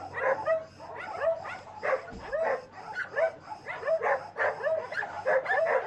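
Many shelter dogs barking together in a steady run of short barks, two or three a second. It is an alarm chorus set off by an arriving delivery van, spreading from dog to dog.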